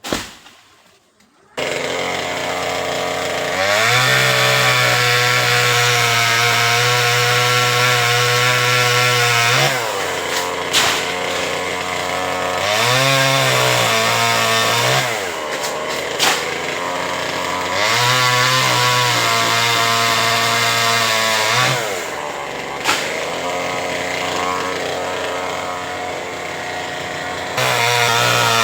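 Two-stroke chainsaw cutting through a mango tree branch. It comes in suddenly about a second and a half in, then revs to full throttle in several long stretches and drops back to a lower idle between them, with a few short sharp knocks.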